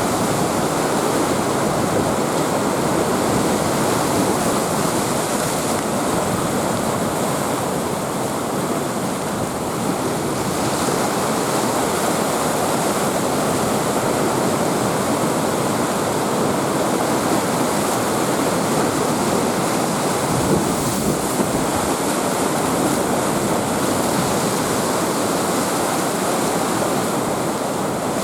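Heavy storm surf from a typhoon-driven sea: waves breaking in a continuous, steady wash of noise, with wind.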